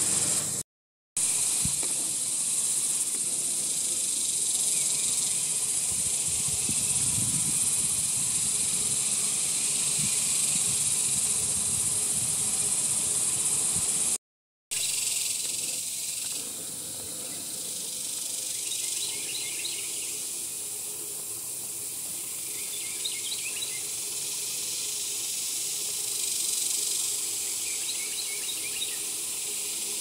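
A steady, high-pitched insect chorus buzzes without a break, cut off twice for an instant. After the second cut it is fainter, and a small bird gives a few quick clusters of short chirps.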